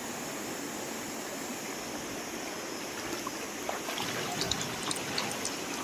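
Steady rush of flowing river water, with faint scattered clicks and ticks in the second half.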